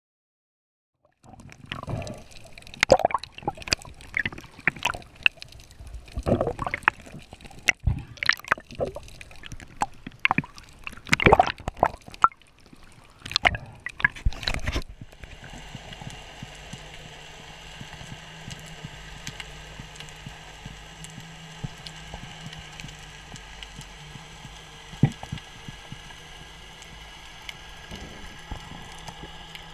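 Muffled underwater sound picked up by a camera in a waterproof housing: irregular splashing, bubbling and sharp knocks. About halfway through it changes abruptly to a steady low hum with a faint high whine.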